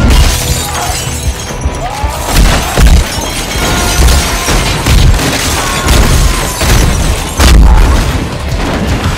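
Loud action-film soundtrack: dense, hard-hitting music layered with fight and crash sound effects, including heavy low thuds roughly once a second.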